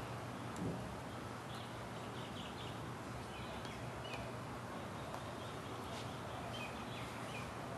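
Faint, short bird chirps repeating at irregular intervals over a steady low hum, with a soft knock about a second in.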